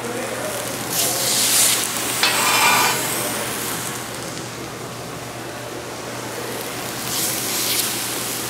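Wagyu steaks sizzling as they sear in rendered beef fat on a hot flat-top griddle, with no added oil. The sizzle runs throughout and surges loudly for a couple of seconds about a second in, and again about seven seconds in, as more steaks are laid down.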